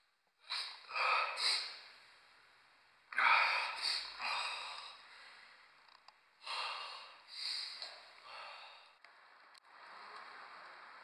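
A man snorting hard through his nose in several sharp sniffs, in three bouts, with heavy breaths and sighs between.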